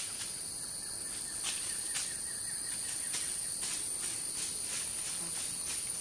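Rainforest insect chorus: a steady high-pitched trill, with soft regular pulses about twice a second.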